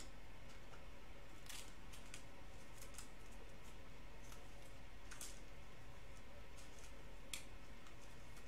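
A few short, faint swishes and scrapes of a trading card being slid into and handled in a clear plastic sleeve, over a steady low hum.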